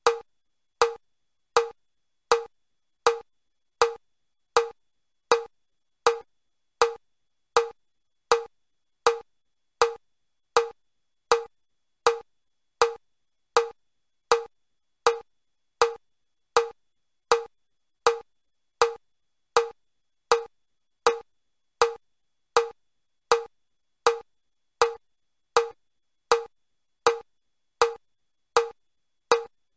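Metronome clicking evenly at about 80 beats a minute, four clicks every three seconds: the pace for level 2 of the Chester step test, 20 steps a minute with one foot movement per beat.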